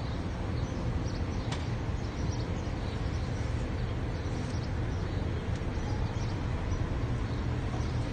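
Steady low rumble of road and engine noise inside a moving car's cabin, with a single faint click about a second and a half in.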